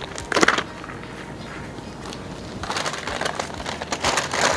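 Crinkling and rustling of dressing wrappers and gauze being gathered up by hand, starting about two and a half seconds in and growing louder near the end, with a brief sharp rustle about half a second in.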